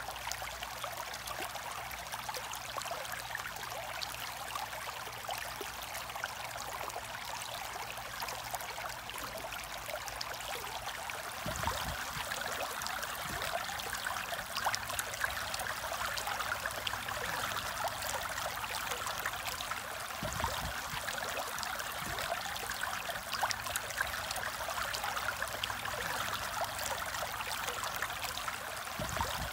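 Aquarium water trickling and splashing in a steady, fine hiss, growing a little louder about a third of the way in, with a few soft low bumps.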